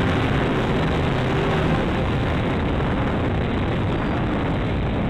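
Steady rushing wind and airflow noise from the Dynam P-51 RC warbird's onboard FPV microphone in flight, with its electric motor and propeller running underneath.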